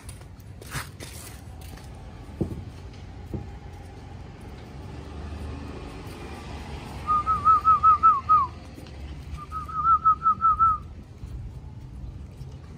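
Two quick runs of about seven short whistled notes each, starting about seven seconds in, with a gap of about a second between the runs; the last note of the first run drops in pitch.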